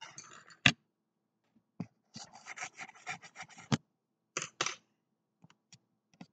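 Close handling noise: irregular rubbing and rustling with scattered clicks, and two sharp knocks, one under a second in and one a little before the four-second mark, as a hand works at the recording device.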